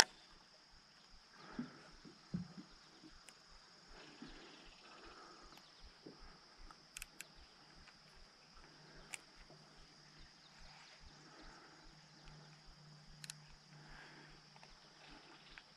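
Faint steady high-pitched insect drone, with a few short sharp clicks.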